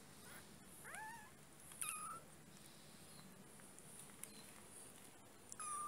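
Very young kitten mewing: three short, high-pitched mews, about a second in, around two seconds, and just before the end.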